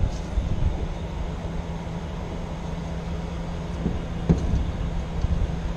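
Idling truck engine, a steady low hum, with a single knock about four seconds in.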